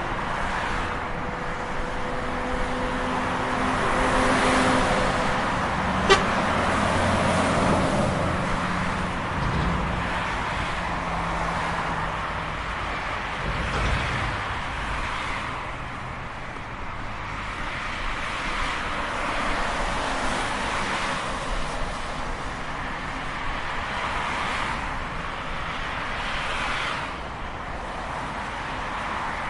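Highway traffic: cars and trucks passing one after another in a continuous rush of tyre and engine noise that swells and fades with each vehicle. A sharp click comes about six seconds in.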